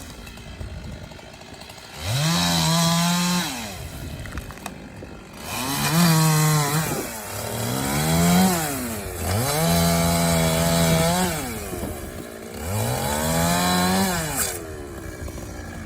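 Two-stroke chainsaw revved up five times, each time holding at full speed for a second or two before dropping back to idle, as when bucking up a fallen tree.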